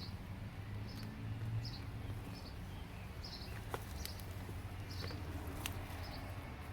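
A bird chirping steadily, one short high chip roughly every second, over a low steady hum, with a few soft clicks.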